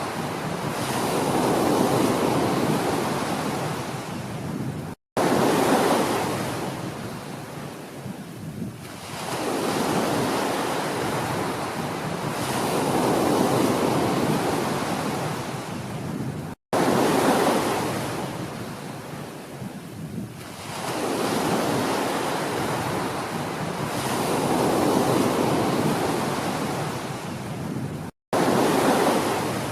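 Ocean waves surging and washing back, the surf rising and falling in swells every few seconds. Three times the sound cuts out completely for an instant and comes back abruptly loud, about every eleven and a half seconds, as a looped recording restarts.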